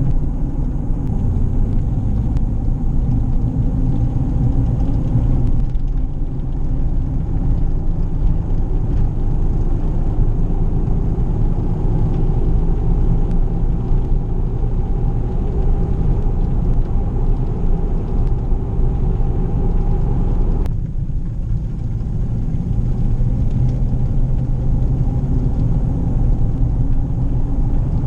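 Inside the cabin of a 2005 Ford Escape on the move: a steady engine and road rumble, with the front end shaking and rattling under acceleration. The owner puts this down to a worn right-front CV axle whose inner boot has torn. The higher part of the sound falls away about three-quarters of the way through.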